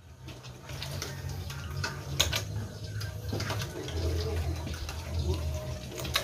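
Piglets slurping and smacking wet feed, a watery mash of feed and water, from a steel basin, with a few small clicks.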